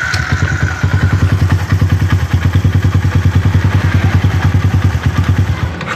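Yamaha Jupiter MX single-cylinder four-stroke engine catching in the first half second and then idling with an even, rhythmic beat. It runs smooth and normal, without the grinding "grok" noise, now that its worn camshaft bearing has been replaced.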